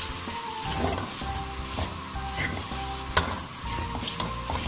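Spaghetti noodles sizzling in a hot pot while a cooking spoon stirs and tosses them, the spoon scraping and knocking against the pot, with one sharp knock about three seconds in. Soft background music plays underneath.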